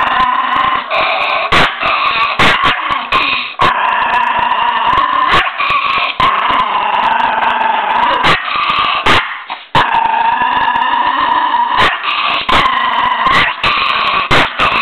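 Miniature pinscher growling in long, nearly unbroken stretches, breaking off briefly about a quarter of the way in and again about two-thirds through, with short sharp clicks scattered through.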